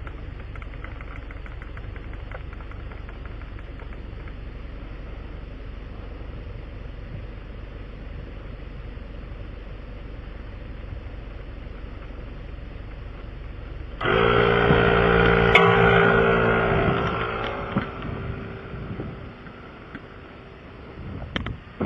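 Vehicle engine running steadily at low level. About 14 seconds in, a much louder engine sound with a steady pitch starts suddenly, then fades away over the next five seconds.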